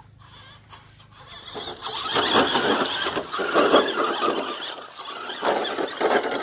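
Scale RC crawler (HPI Venture FJ Cruiser on Super Swamper tires) driving through muddy water: its electric motor and drivetrain whine under load while the tires churn and throw splashes, growing loud about a second and a half in.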